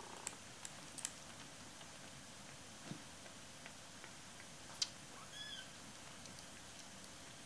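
A Maine Coon kitten about four weeks old gives a short, thin, high-pitched mew about five seconds in. A few faint sharp clicks come before it, the loudest just before the mew.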